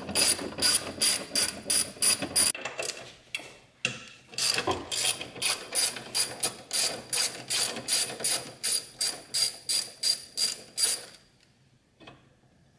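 Hand ratchet with a socket clicking as it backs out 12 mm strut-tower-brace bolts, a quick even run of about three or four clicks a second. There is a brief pause about two and a half seconds in, and the clicking stops about a second before the end.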